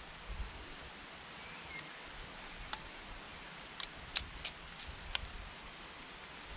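Faint woodland ambience: a steady quiet hiss with a low wind rumble, broken by a handful of short, sharp clicks in quick succession around the middle.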